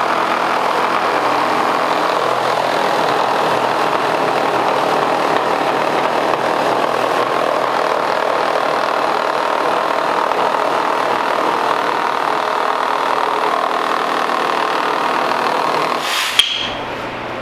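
Two 12-volt cordless reciprocating saws, a DeWalt DCS312 and a Milwaukee M12 Fuel Hackzall, running at once and cutting down through wooden studs under hanging weights: a steady, dense sawing noise. It stops about sixteen seconds in with a single sharp knock.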